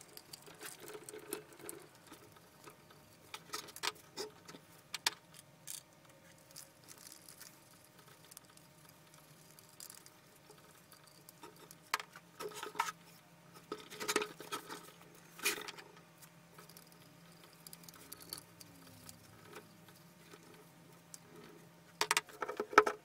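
Scattered light clicks, taps and knocks of painting work: a small paint roller working over a metal hand press and being dipped in a paint tin, with a sharper cluster of knocks near the end. A faint steady hum runs underneath.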